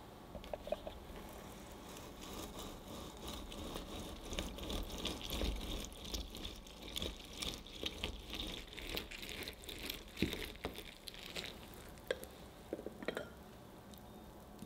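Half a citrus fruit pressed and twisted by hand on a plastic citrus reamer over a glass bowl: wet squishing and crackling of the pulp, with juice dripping. There are a few sharp plastic-and-glass clicks near the end.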